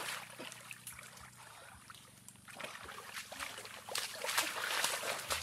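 Splashing and sloshing of shallow muddy stream water as a person wades through it with hands in the water, in irregular strokes that grow louder over the last second and a half.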